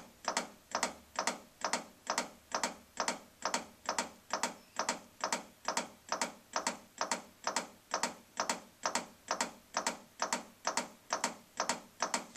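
Chest compressions on a CPR training manikin. Each push gives a sharp click, about two a second in an even rhythm.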